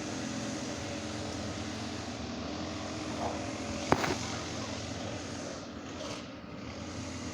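Steady mechanical hum with a single sharp click about four seconds in.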